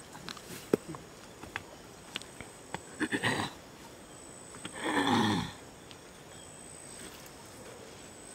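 Scattered sharp clicks and knocks, then two animal calls: a short broken one about three seconds in and a louder one falling in pitch about five seconds in.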